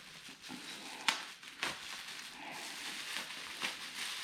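Handling noises during bike assembly: a few light clicks and knocks, clearest about a second in and again shortly after, over a soft rustle.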